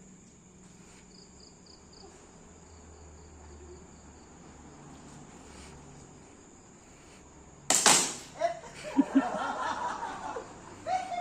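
Quiet with faint clicks, then one sharp, loud crack about eight seconds in, typical of an airsoft gas-blowback gun firing. Right after it a person laughs and calls out.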